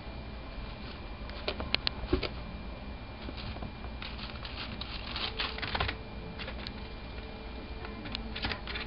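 Light crackling rustles and sharp clicks of artificial houseplant leaves being tugged and dragged by a red squirrel gathering nest material. They come in scattered bursts: a few clicks about two seconds in, a busier patch of rustling around five to six seconds, and more clicks near the end.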